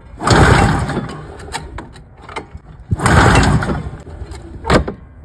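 Recoil starter pulled twice, cranking a Ski-Doo Formula MX's Rotax 467 two-stroke twin with a spark plug out, and the engine not firing. Each pull is about a second of rushing noise, with sharp ticks between the pulls and a loud one near the end.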